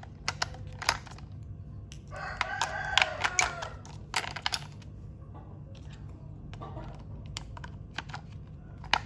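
Small plastic clicks and knocks as batteries are fitted into a Thomas toy train's battery compartment. About two seconds in, a drawn-out wavering call sounds in the background for over a second.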